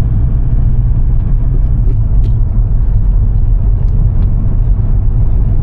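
Volkswagen Jetta driving, heard from inside the cabin: a steady low rumble of engine and road noise.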